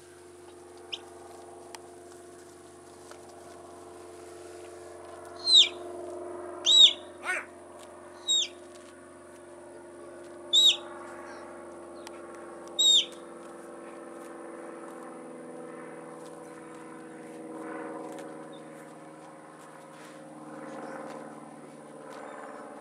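Six short, high whistle blasts, some sliding up or down in pitch, between about five and thirteen seconds in: a handler's whistled commands to a working sheepdog. A steady low drone runs underneath.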